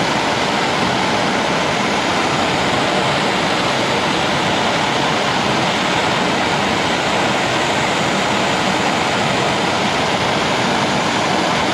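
Gas torch flame hissing steadily, heating a coated steel spanner to cure its coating.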